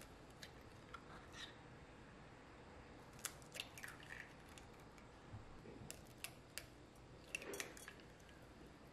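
Eggs cracked one after another into a glass bowl: faint, sharp clicks and cracks of eggshell, a cluster of them from about three seconds in and more between six and eight seconds, over quiet room tone.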